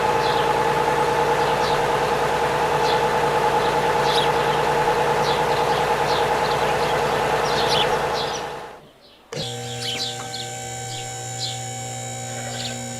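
Birds chirping over a steady, slightly wavering hum. The sound fades out about two-thirds of the way through, then cuts back in with a different steady hum and more chirps.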